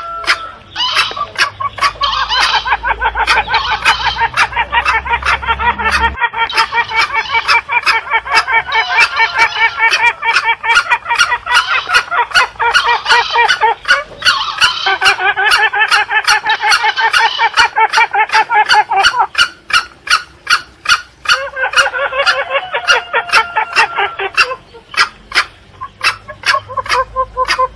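Green junglefowl lure call: a dense run of overlapping junglefowl calls, rapid chattering clucks and cackles, with a regular click about twice a second beneath them. It thins out briefly a couple of times in the second half.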